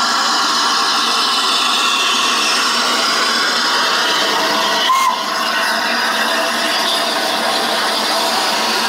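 Steam locomotive letting off steam: a loud, steady hiss, with a short click about halfway through.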